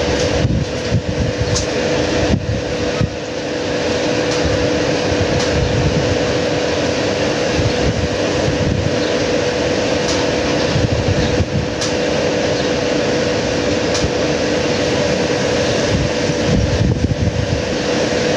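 A steady mechanical hum, like a fan or air-conditioning unit, with two fixed tones over a constant noise. Uneven low rumbling on the microphone runs under it, and a few faint clicks come through near the start.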